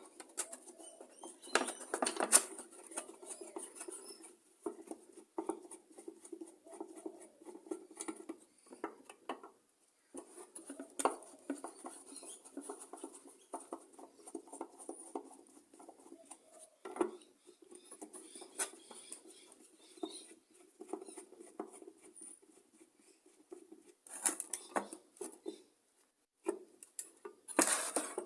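Irregular small clicks, scrapes and taps of a hand tool and metal screws as the screws holding a Briggs & Stratton tank-mounted carburettor to its fuel tank are undone and taken out, with a few sharper knocks and a louder clatter near the end.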